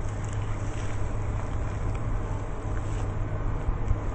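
Steady low rumble and hiss of wind buffeting the microphone, with a distant electric train approaching along the line.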